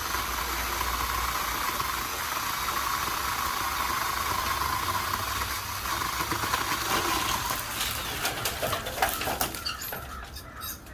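Craftsman V20 20-volt cordless pole chainsaw running, its chain cutting through dead wood with a steady, high rasp. About seven or eight seconds in, the cutting stops and a run of sharp cracks and knocks follows.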